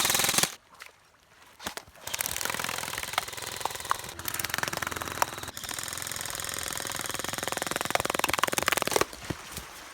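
A fast, even mechanical rattle of rapid clicks runs for about seven seconds, growing slightly louder, then cuts off suddenly near the end. A short loud burst of sound comes right at the start.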